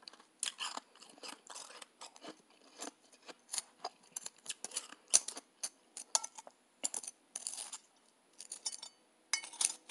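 Soft, snowy blender ice crunching in a rapid series of crisp crackles and a few louder pops, with a brief lull about eight seconds in.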